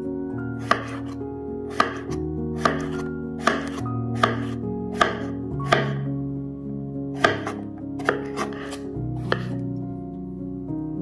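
Chef's knife slicing through a cucumber, each cut ending in a sharp knock of the blade on a wooden cutting board, about one cut a second, thinning out near the end. Background music with held notes runs underneath.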